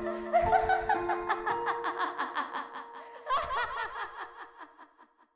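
A woman's mad laughter, echoing, in a long string of quick pulses with a fresh, louder burst about three seconds in, then dying away just before the end.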